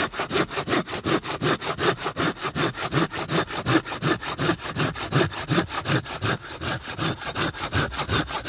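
Hand saw cutting through a length of wood in quick, even back-and-forth strokes, about five a second.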